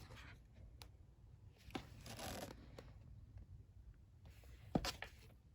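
Paper and card being handled: faint clicks, a brief rustle about two seconds in, and a sharper knock near the end.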